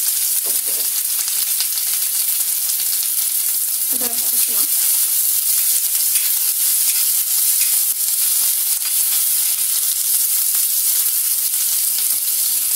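Chopped onions sizzling in hot oil in a kadai, a steady hiss, with a steel spatula stirring and scraping against the pan. The onions have just gone into oil tempered with mustard seeds, urad dal and dried red chillies.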